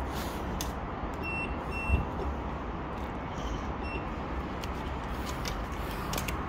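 Short high electronic beeps from station ticket-barrier card readers: two about a second and a half in, another near four seconds. Underneath runs a steady background rumble, with one low thump about two seconds in.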